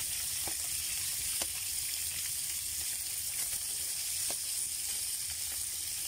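Chicken thighs and whole garlic heads frying in hot oil in a frying pan, a steady sizzle with a few faint pops.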